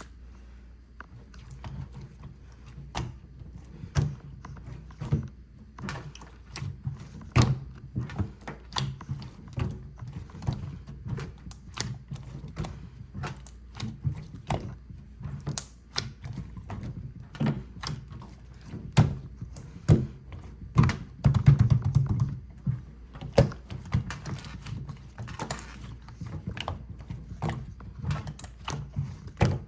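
Hands squishing, folding and stretching croissant slime, giving irregular sticky pops and clicks with soft thuds, a denser run of them about two-thirds of the way through.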